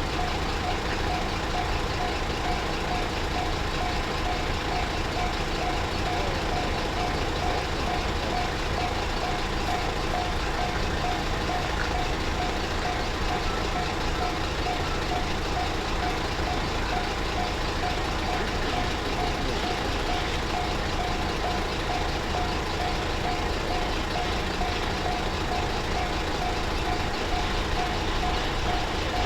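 Japanese railway level-crossing alarm ringing its repeated electronic "kan-kan" warning tone in an even, unbroken rhythm.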